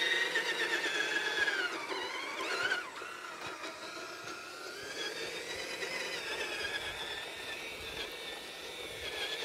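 Brushed electric motor and planetary gearbox of a 1/10-scale JDModel Desert Runner RC truck whining as it drives. The pitch dips and rises again about two to three seconds in as the throttle changes, then the whine runs steadier and a little quieter.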